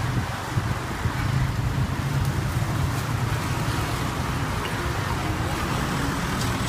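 Strong storm wind blowing, a steady low rumble and hiss of wind buffeting the microphone.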